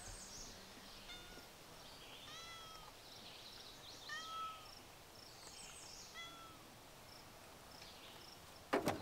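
A cat meowing: about five short, faint meows spaced a second or two apart. A few sharp clicks come just before the end.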